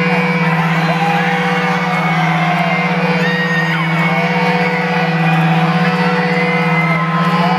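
Live rock band holding a steady, droning chord through the concert PA, with the crowd whooping and shouting over it.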